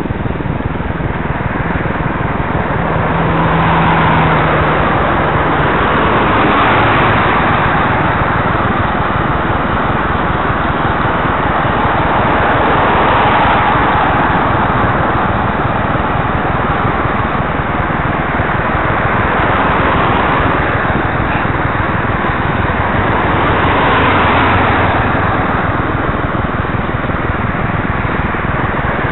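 Motor traffic passing on a wet road, tyre hiss swelling and fading every few seconds, over a steady rush of wind on the microphone of a camera on a moving bicycle.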